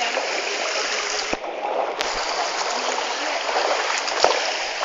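Stream water rushing steadily, with a few sharp knocks and splashes close by.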